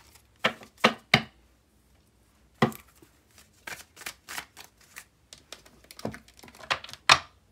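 A deck of tarot cards being shuffled by hand: a run of irregular sharp clicks and slaps of card on card, the louder ones in the first second or so and again near the end.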